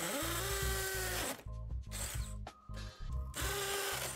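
DeWalt cordless drill with a masonry bit grinding into the mortar around an outdoor spigot to free it, in three runs: a long one that spins up at the start, a short one about two seconds in, and another near the end. Background music plays underneath.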